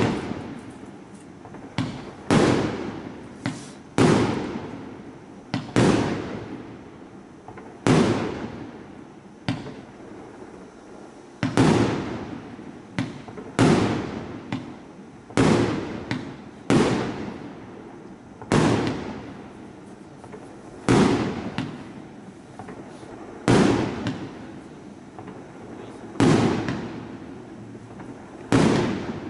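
140-shot compound fireworks cake firing shot after shot, with a sharp report roughly every one to two seconds. Each report trails off over about a second.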